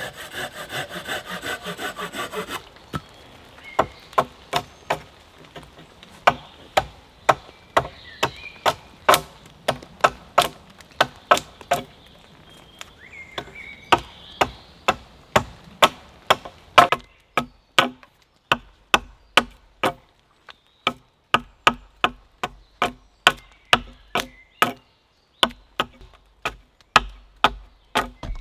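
Hand tools working wood: a short rasping at the start, then a long, steady run of sharp strikes on wood, about two a second.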